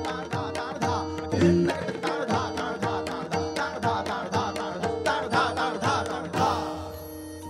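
Tabla playing: a fast, even run of strokes on the dayan and bayan over held melodic accompaniment. The drumming stops about six and a half seconds in, leaving the accompaniment's held notes ringing on.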